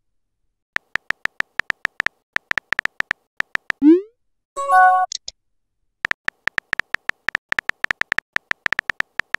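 Texting-app sound effects: rapid keyboard tapping clicks for about three seconds, a short rising swoop as a message is sent, and a brief chime as the next message appears. More typing clicks follow near the end.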